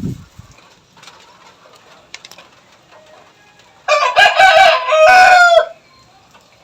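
A rooster crows once, about four seconds in, the call ending on a long held note that drops off. A brief low thump sounds at the very start.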